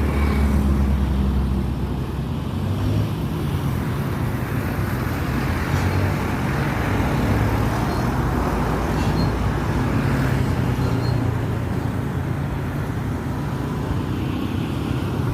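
Excavator's diesel engine running steadily with a low rumble, loudest in the first couple of seconds, over a constant wash of machinery and road noise.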